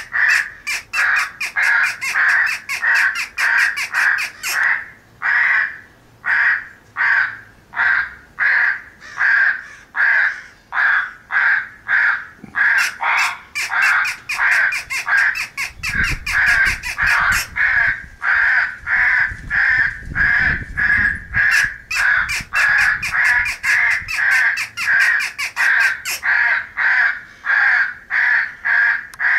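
Crows cawing in a steady, unbroken run of harsh caws, about two a second: a feeding-crows morning call meant to be played through an electronic game caller. A low rumble sits under the caws for several seconds in the middle.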